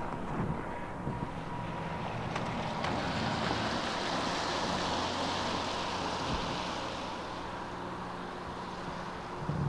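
Rebuilt CSX diesel locomotive approaching with a steady low engine hum. A rushing hiss swells up in the middle and fades again.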